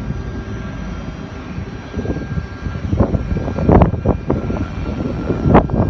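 Wind buffeting the microphone: a steady low rumble, with stronger, irregular gusts from about two seconds in.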